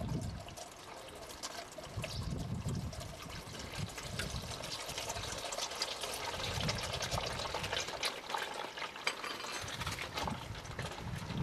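Engine oil draining from a Nissan Y60 Safari's oil pan through a hose on a quick-drain oil cock, pouring and gurgling steadily.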